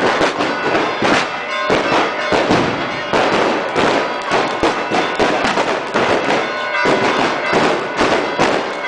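Fireworks and firecrackers going off in a rapid, unbroken string of cracks and bangs, as at the Greek Orthodox Easter Resurrection celebration, with a few steady ringing tones underneath.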